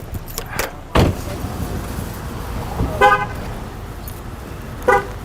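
Car horn giving two short beeps, about two seconds apart, the chirp a car gives when it is locked with its remote. A sharp thump comes about a second in.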